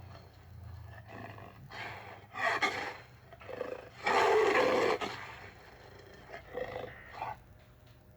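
Custom monster roar sound effect: a string of short growls and roars, with the loudest, a long roar of about a second, some four seconds in.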